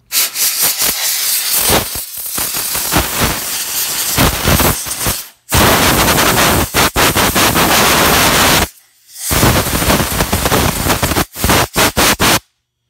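Compressed-air blow gun blasting dust out of a wood stove blower's squirrel cage fan wheel: loud hissing blasts with two short breaks, ending in a run of quick on-off bursts.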